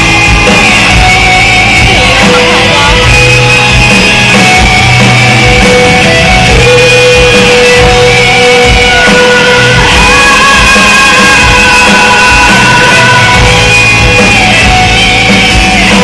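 Live pop-rock band music played loud through an arena sound system, with long held notes, and fans yelling over it.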